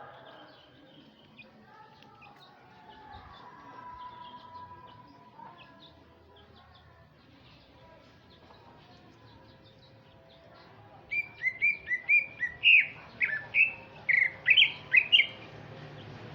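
Male green leafbird (cucak ijo) singing: faint scattered twittering, then about eleven seconds in a loud run of a dozen or so quick, sharp, high chirps for about four seconds.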